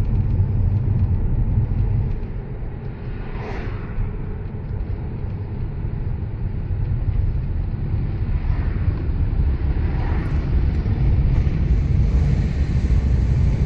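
Steady low engine and road rumble heard from inside a moving car's cabin, easing off about two seconds in and building again later.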